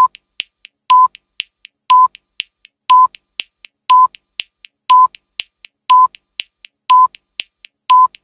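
Countdown timer sound effect: nine short, evenly spaced beeps one second apart, with faint, quicker clock-like ticks between them.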